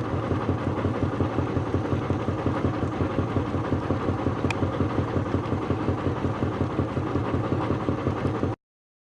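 Heavy machinery engine running steadily with an even pulsing beat of about five a second, with one short click midway; the sound stops abruptly near the end.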